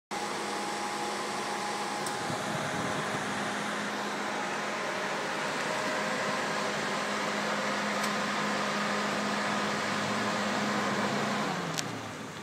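Electric fan running with a steady hum, then winding down with falling pitch near the end, with a sharp click as it slows.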